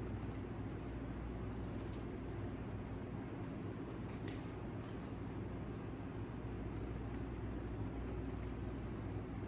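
Scissors cutting through fabric: short snips and scrapes come at irregular intervals over a steady low hum.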